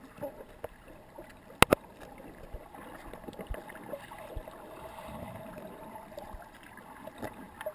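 Muffled underwater sound heard through a camera held below the surface: a steady low wash of water with faint gurgling. Two sharp clicks come close together about one and a half seconds in.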